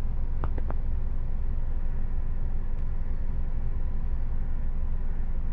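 Steady low rumble of wind buffeting the microphone, with a couple of faint clicks about half a second in.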